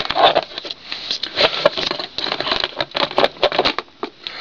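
Handling noise: a run of irregular clicks, taps and scraping rustles close to the microphone, dying down near the end.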